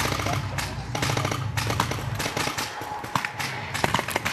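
Rapid paintball marker fire, many sharp shots in quick succession from several guns, with a low rumble underneath that stops about a second and a half in.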